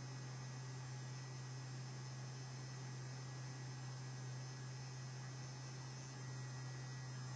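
Electric powder trickler's vibrating drive buzzing steadily as it feeds powder, with a few faint ticks as kernels of long-grain rifle powder drop into a glass cup.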